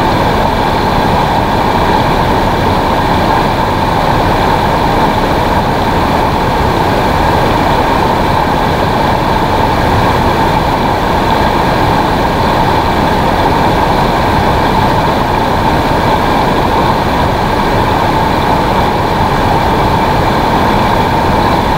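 Steady, loud rush of a fast river run churning over rocks.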